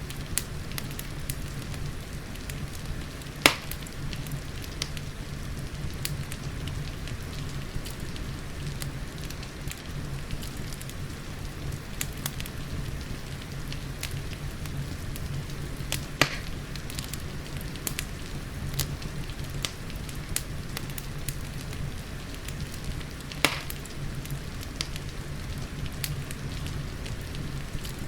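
Wood fire crackling in a fireplace with frequent small ticks and three louder sharp pops, over a steady hiss of rain.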